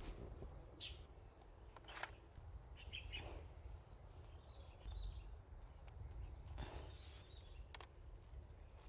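Faint forest ambience: a bird calls again and again in short, high, falling notes, over a low rumble, with a few sharp knocks or rustles.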